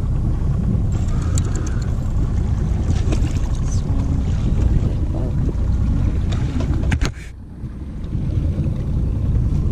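Wind rumbling on the microphone over the noise of a boat on open water, with a few short sharp clicks; the rumble drops off suddenly about seven seconds in, then comes back.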